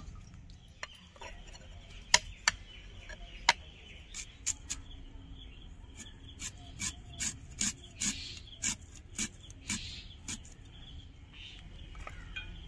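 A series of short, sharp rasping and knocking strokes from preparing ingredients by hand. They come scattered at first, with one loud knock about two seconds in, then settle into a run of about two strokes a second in the middle.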